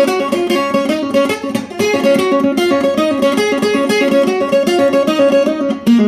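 Guitar picking a quick run of plucked notes as an instrumental break between sung lines, with no singing.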